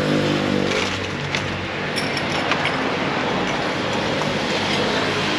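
Motor vehicle engine running close by in street traffic, a pitched engine hum over steady road noise that fades after about a second.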